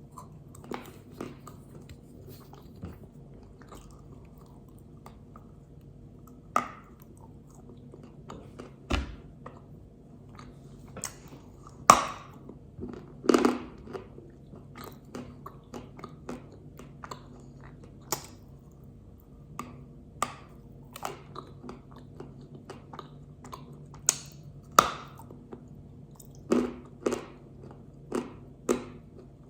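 Pink Uzbek edible clay being bitten and chewed close to the microphone: sharp, irregular crunches, the loudest about twelve and thirteen seconds in, over a faint steady hum.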